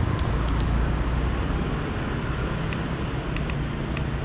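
Busy street traffic: a steady low rumble of vehicle engines running and passing, with a run of short high ticks in the second half.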